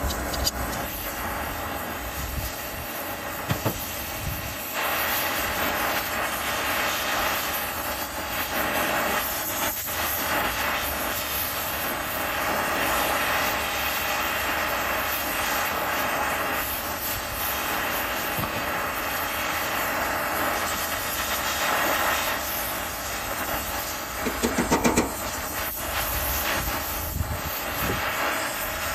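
Brazing torch flame burning with a steady rushing hiss as it heats a brazed copper refrigerant-line joint on an air-conditioner compressor to unsweat it. A few short sharp clicks stand out near the end.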